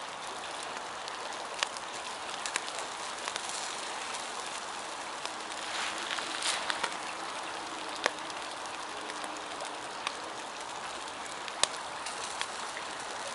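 Campfire embers hissing and crackling under a whole trout cooked directly on the coals, with a few sharp pops scattered through.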